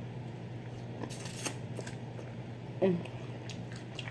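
Crawfish and shrimp shells crackling and snapping as they are peeled by hand, with one brighter burst of crackling about a second in and a few small clicks after. A brief hum of the voice comes near three seconds in, over a steady low hum.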